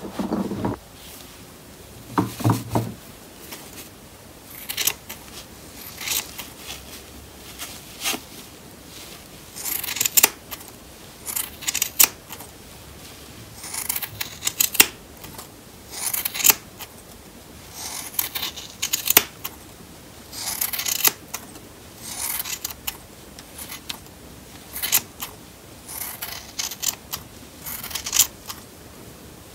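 Large fabric shears snipping through shaggy fur fabric, in short runs of several crisp cuts every second or two.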